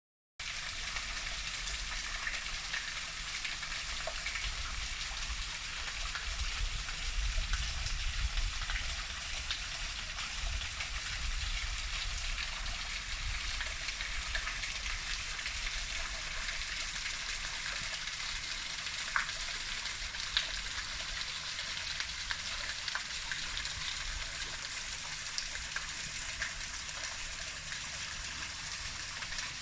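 Waterfall pouring and splashing steadily, a constant rush of falling water.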